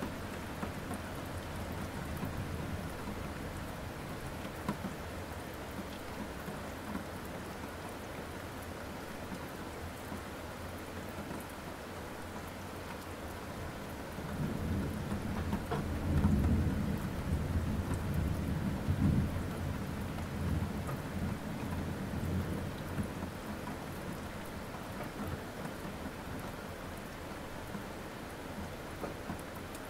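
Steady rain falling, with a long roll of thunder rumbling in from about halfway through, peaking twice before it fades back under the rain.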